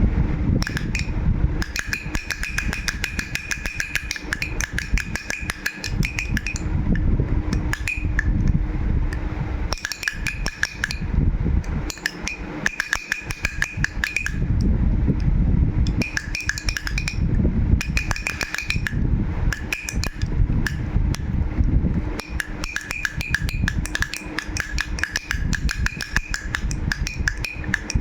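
A baby's rattle shaken continuously, its beads clicking and rattling in uneven bursts, with a ringing note sounding now and then.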